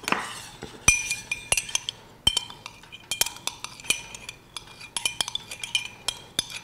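Metal teaspoons clinking and scraping in a small glass and a small steel saucepan, as umeboshi plum is mashed with soy sauce in the glass. Quick irregular clinks, several a second, each ringing briefly.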